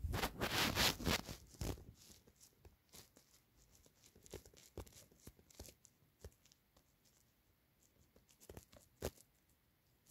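Handling noise close to the microphone: rustling and scraping as a phone is moved about for the first two seconds, then only scattered faint clicks and rubs, with two sharper scrapes near the end.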